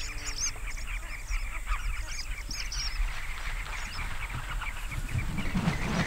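A dense, overlapping chorus of many birds calling at once: a mixed flock feeding on flying termites. Short high chirps fill the whole stretch, and lower-pitched calls join in near the end.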